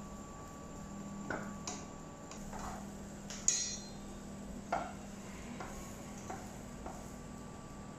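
Wooden spatula knocking and scraping against a non-stick frying pan as a pancake is worked loose and flipped, a scattering of light taps, with a sharper clank and brief ring about three and a half seconds in and another knock a second later. A faint steady hum runs underneath.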